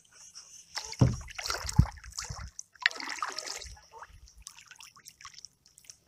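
Lake water splashing, sloshing and trickling around a kayak and its paddle blade, with two heavy knocks about a second in and just under two seconds in, then fainter drips and splashes.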